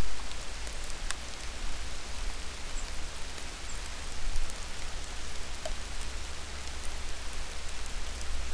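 Steady, even hiss with a low hum underneath and a few faint, scattered ticks, picked up by a trail camera's microphone.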